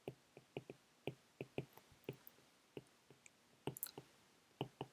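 Stylus tip tapping and clicking on a tablet's glass screen while handwriting: a dozen or so faint, irregular clicks.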